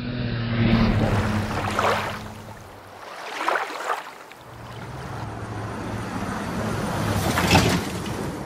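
Street traffic: vehicles passing, heard as three loud rushes of noise over a steady low engine hum.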